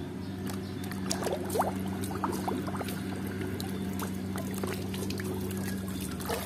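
Water sloshing and splashing in a plastic basin as a muddy plastic toy cow is swished and rubbed clean by hand, with small gurgles and drips. A steady low hum runs underneath.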